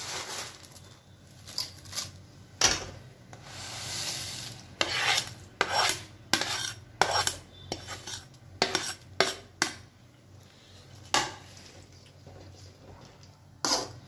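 Metal spatula clinking and scraping against a plate and an aluminium kadai as fried Maggi noodles are scraped in and stirred into the broth. It is an uneven run of sharp clinks, with a longer scrape about four seconds in.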